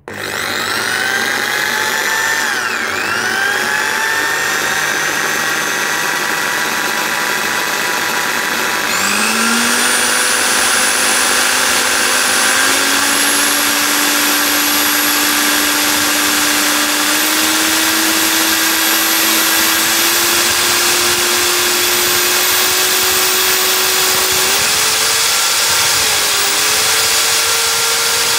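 Electric drill with a keyed chuck switching on and running with a steady motor whine. The pitch dips briefly early on, jumps up about nine seconds in, then climbs in small steps as the speed is raised from about 1800 to near 2800 rpm.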